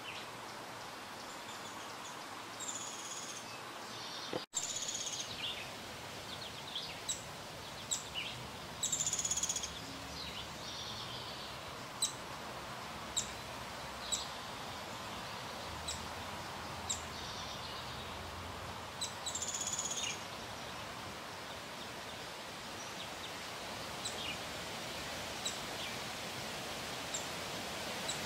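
Wild songbirds calling and singing, with short, high, sharp chirps repeating about once a second through the middle stretch over a steady background hiss. The sound cuts out for an instant about four seconds in.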